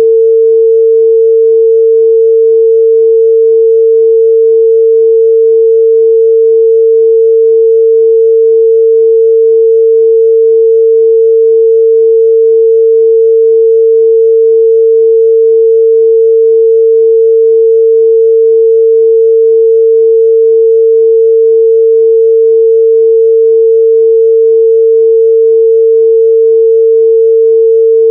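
A steady, loud 451 Hz sine-wave test tone: a single pure midrange pitch held unchanged, with no overtones.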